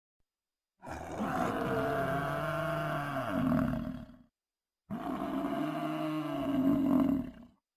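Cape buffalo bellowing in distress as lions pull it down: two long, drawn-out calls, each falling away at the end.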